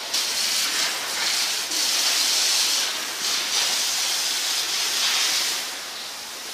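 Steam locomotive venting steam: a high rushing hiss that swells and eases in uneven surges.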